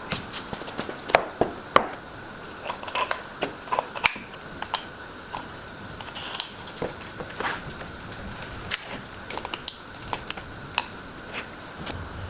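Light, irregular clicks and knocks of small wooden pieces being handled and set against each other, over a faint steady hum.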